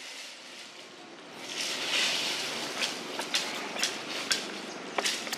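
Dry leaf litter rustling, then a string of sharp, uneven crackles as leaves are stepped on and crushed underfoot.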